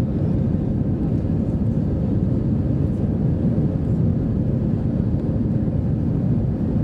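Steady cabin noise inside an Airbus A320-214 in the climb after takeoff: a constant low rumble of its CFM56-5B engines and airflow, with a faint steady hum above it.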